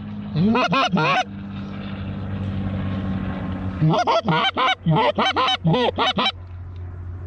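Canada goose honks and clucks blown on a hand-held goose call, calling to geese working the decoys: a run of three notes, then about eight rapid notes from about four seconds in.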